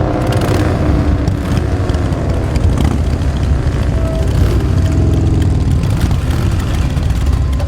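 Motorcycle engines running loud and deep, their pitch falling and rising as they rev.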